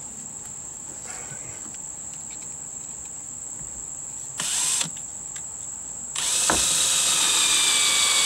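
Cordless drill driving screws through the camper's plastic compartment lip into a new plywood strip. A short burst comes about four and a half seconds in, then a longer run of about two and a half seconds near the end, its motor pitch falling as it goes.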